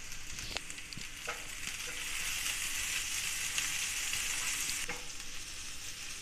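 Chopped onions and ginger-garlic paste sizzling in hot oil in a nonstick frying pan while a wooden spatula stirs them; a few light knocks in the first second or so, and the sizzle grows louder about two seconds in.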